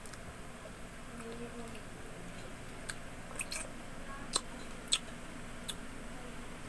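Close-up eating sounds: chewing a mouthful of chicken curry and rice eaten by hand, with a handful of sharp wet mouth clicks and smacks between about three and five seconds in.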